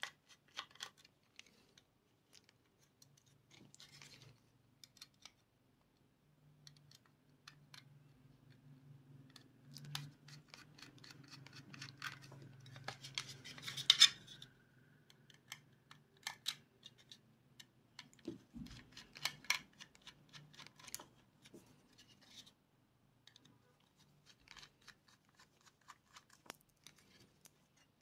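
A small screwdriver working the tiny mounting screws on a laptop hard drive: faint, scattered clicks and scrapes of metal on metal, with a louder clatter about halfway through.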